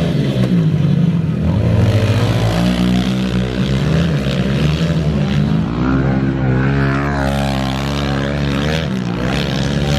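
Several small four-stroke 110cc pit bike engines running at once, overlapping, their pitch rising and falling as the riders rev on and off the throttle.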